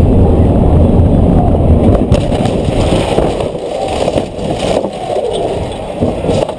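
A stripped, roll-caged car running hard, heard from inside the cabin, with a heavy low rumble. About two seconds in a sharp bang cuts in. The rumble then gives way to a rougher, quieter noise of rattles and knocks.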